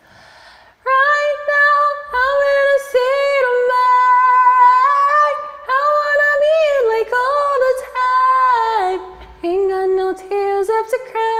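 A single voice singing a melody unaccompanied, starting about a second in with long held notes and slides between them; the line drops lower about nine seconds in.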